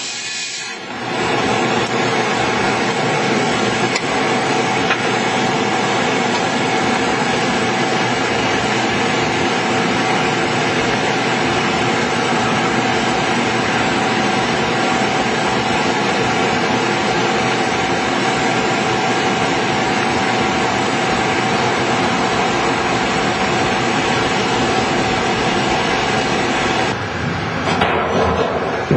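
Homemade wood-block burner running under stable self-sustaining combustion: a steady roar with a constant whine running through it. The sound shifts briefly near the end.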